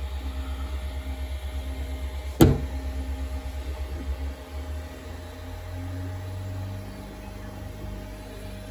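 Artillery Sidewinder X2 3D printer laying down its first layer: the stepper motors hum in a fast, even pulse, which turns to a steadier, slightly higher hum about halfway through. One sharp click about two and a half seconds in.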